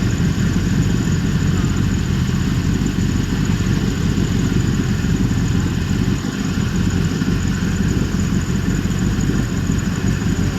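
Loud 4x4 off-road vehicle's engine running steadily, with a deep, even exhaust note and no revving.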